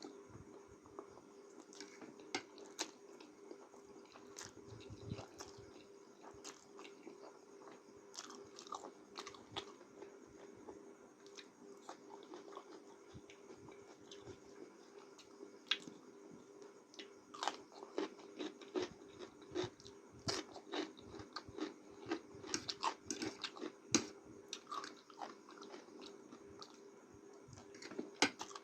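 Eating instant noodles close to the microphone: chewing with irregular wet mouth clicks and smacks, busier in the second half, over a faint steady hum.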